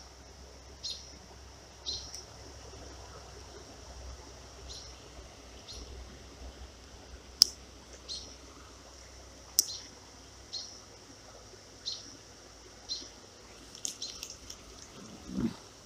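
A bird calling in short high chirps, roughly one a second with some gaps, over a faint steady background. Two sharp clicks fall in the middle, and a few clicks with a brief rustle of handling come near the end.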